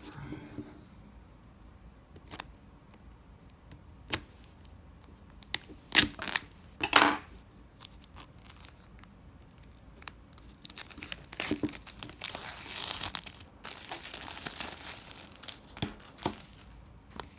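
Packaging being handled and torn open: a few sharp knocks and rustles, then several seconds of steady tearing and crinkling.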